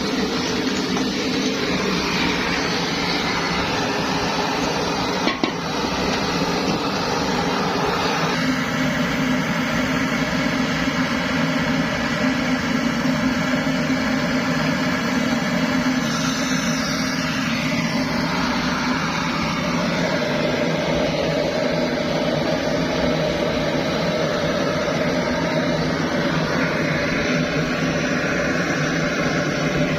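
Kerosene pressure stove (primus burner) burning with a steady hiss, with a single sharp click about five seconds in.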